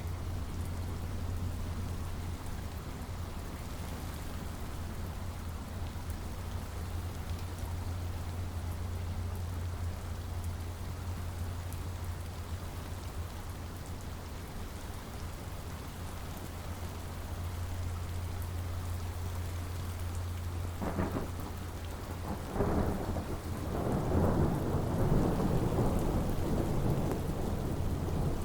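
Steady rain falling, with a thunderclap breaking out about three-quarters of the way through and rolling on in louder surges until the end.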